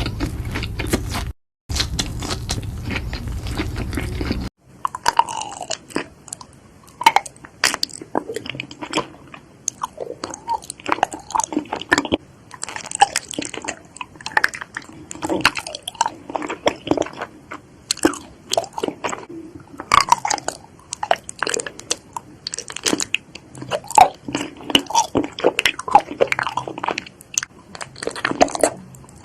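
Close-miked eating: a person biting into and chewing crisp food, with many sharp crunches. The first few seconds hold a denser, steadier crackling noise from another clip, cut off about four and a half seconds in.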